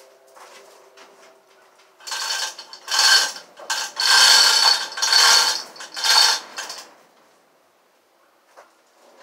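Metal clattering and rattling in a run of loud bursts from about two seconds in, dying away about two seconds before the end, with faint ticks afterwards.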